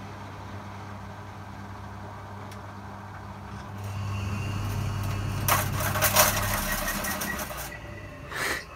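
An old front-loading washing machine running: a steady hum that grows louder with a low rumble about four seconds in, joined past the middle by a loud clattering rattle like metal pieces moving around. The owners take it for a failed bearing.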